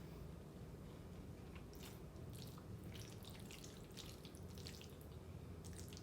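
Faint, wet chewing and mouth sounds of someone eating creamy fettuccine alfredo: soft sticky clicks and smacks scattered throughout, over a low steady hum.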